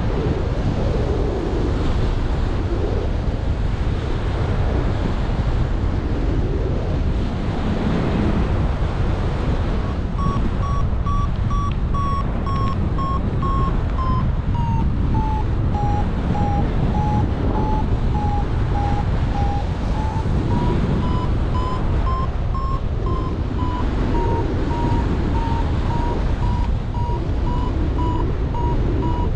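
Wind rushing over the microphone in flight. From about ten seconds in, a paragliding variometer beeps rapidly over it, its pitch dipping and then rising again; the beeping is the sign that the glider is climbing in lift.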